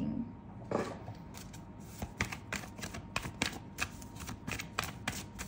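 A deck of tarot cards being shuffled by hand: a quick, irregular run of card clicks that starts about a second in.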